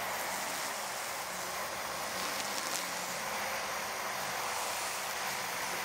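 Cordless EGO Power+ grass trimmer running steadily as it cuts grass, heard from a distance and mixed with steady highway traffic noise.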